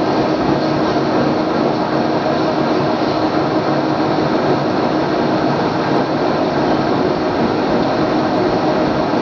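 Boat engine running steadily, a constant hum under a rush of noise, heard aboard a moving boat.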